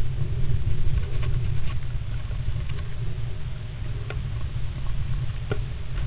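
Scattered light scratches and taps from a great spotted woodpecker moving and preening inside its wooden roost box, over a steady low rumble.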